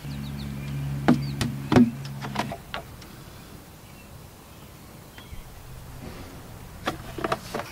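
Motor oil glugging from a plastic jug into a funnel in the engine's oil filler neck, with sharp clicks and knocks of the jug, a cluster in the first three seconds and another near the end. A low steady hum lies under the first two and a half seconds.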